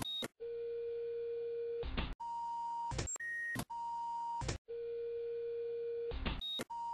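A sequence of about nine electronic sine-wave beeps at jumping pitches, cut together with abrupt clicks and short gaps. Long low and middle tones alternate with brief high blips.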